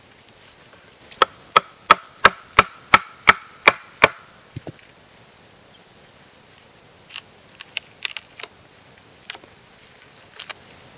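A Mora knife struck repeatedly into a birch log: ten sharp, evenly spaced knocks, about three a second, each with a brief ring from the steel blade. A few quieter cracks and taps of wood follow later.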